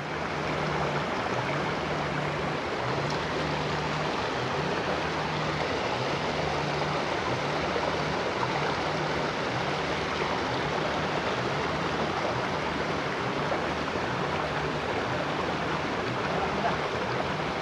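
Shallow, rocky stream flowing over stones: a steady rushing of water.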